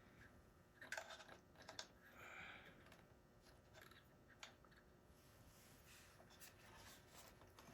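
Near silence with a few faint clicks and light rustles: small plastic accessory parts of a model helicopter being handled and pressed into place.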